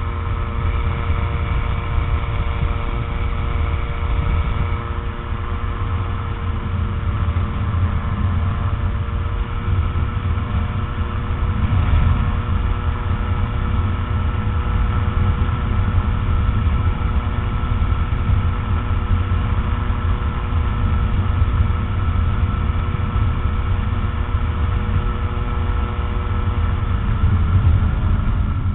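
The Rotax 912 flat-four engine and propeller of a Tanarg 912 Bionix trike droning steadily in flight, under a heavy low rumble. Near the end the engine note falls as the throttle is eased back.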